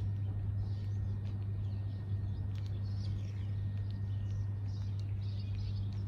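House sparrows chirping in short, scattered bursts over a steady low hum.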